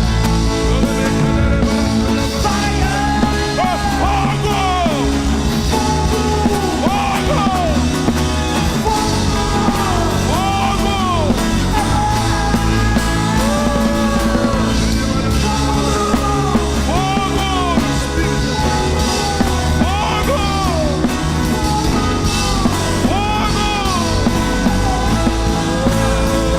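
Loud rock-style band music with singing: steady bass and chords under a melody that rises and falls in repeated arching phrases.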